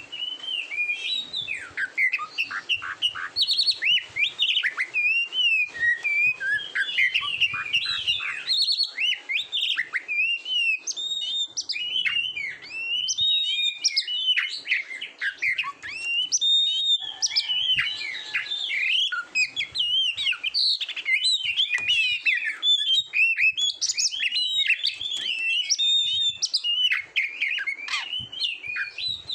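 Oriental magpie-robin (kacer) singing a rapid, unbroken run of varied whistles and chirps.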